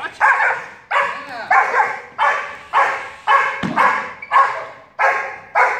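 Young German Shepherd female barking repeatedly at a decoy in protection-dog agitation work, about two barks a second, steady and loud.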